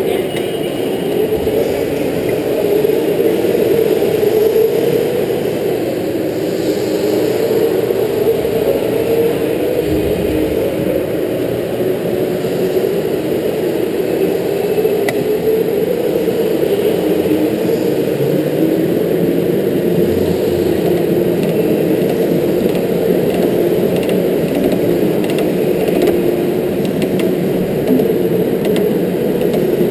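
Electric go-kart motor whining as the kart drives, its pitch rising and falling with speed through the laps.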